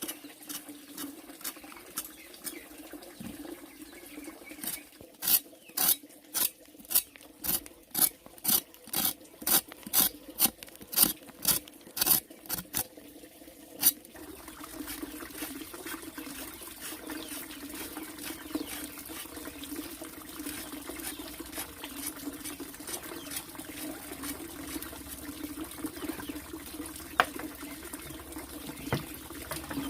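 A rhythmic series of about fifteen sharp knocks, roughly two a second, which stop suddenly a few seconds before the middle. They sit over a steady low hum, and a steady hiss is left after them.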